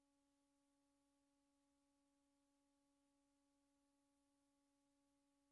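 Near silence: the soundtrack of silent film footage, holding only a very faint steady hum.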